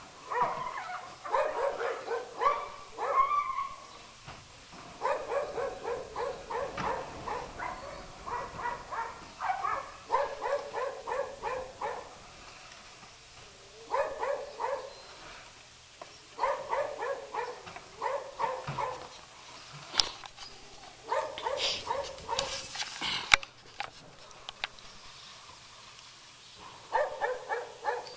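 A dog barking in quick runs of yaps, each run lasting a second or a few seconds, again and again. A few sharp knocks fall between the runs, the loudest about two-thirds through.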